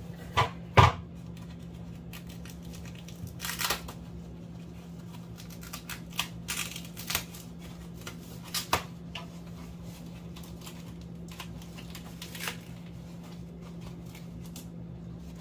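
Foam packing wrap rustling and crinkling as it is handled and peeled back, with scattered clicks and taps. Two sharp knocks come about half a second apart under a second in.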